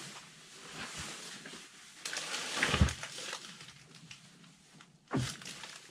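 Rustling of winter clothing and handling of gear in a bag, with scattered small clicks and a knock a little under three seconds in, and another short scuffle a little after five seconds.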